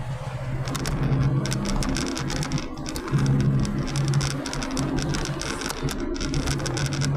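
Car on the move heard from inside the cabin: a steady low drone of engine and tyres on the road, with many small clicks and rattles over it.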